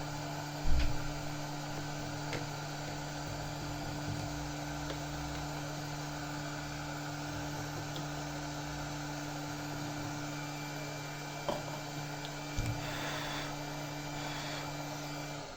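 Steady electrical mains hum over a constant background hiss, with one sharp thump about a second in and two light knocks near the end.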